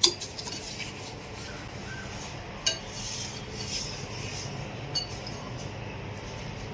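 Wire whisk stirring butter, oil and sugar in a glass bowl: a steady soft scraping, with a few sharp clinks of the wires against the glass.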